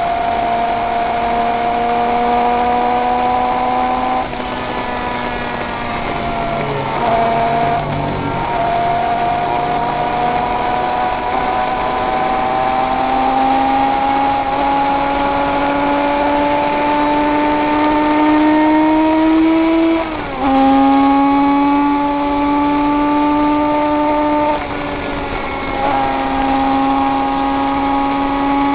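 König 500cc two-stroke flat-four racing motorcycle engine, heard from on board, running hard with its pitch climbing slowly as it gathers speed and dropping sharply at gear changes, about four times.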